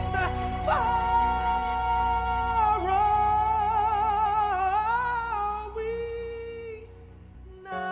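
Music: a female voice sings long, wavering held notes without words over a steady low accompaniment. The music fades about seven seconds in, then picks up again.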